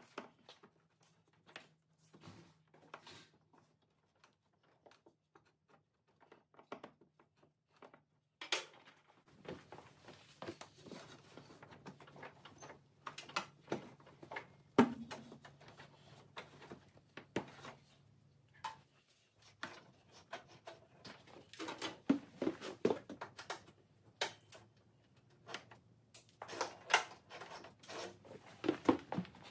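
Hand work on a garden tractor's fuel system: scattered clicks, taps and clunks of tools, clamps and fittings being handled. The knocks are sparse at first and come thicker and louder after about eight seconds, over a faint steady low hum.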